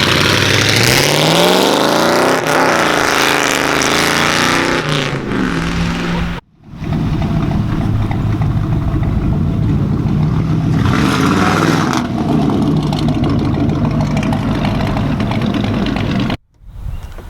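A vehicle's engine accelerating hard, its pitch rising through the revs with a gear change about two seconds in. After an abrupt cut it continues as a steadier engine run.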